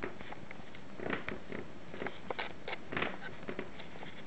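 Bursts of scratchy rustling and soft clicks from a cat playing close by, pawing and clawing about on the carpet: one burst about a second in and a longer run between two and three and a half seconds.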